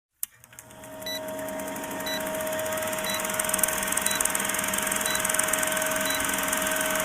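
Electric motor of a woodworking machine switched on with a click, spinning up over about a second and then running steadily at speed, with a faint short high beep about once a second.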